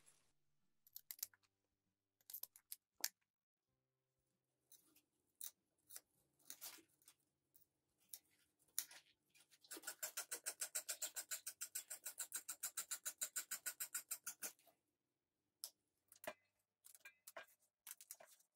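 Kitchen knife cutting and scraping young radish (yeolmu) stems and root ends: scattered crisp cuts, then a quick, even run of about nine strokes a second lasting some five seconds in the middle, then a few more cuts.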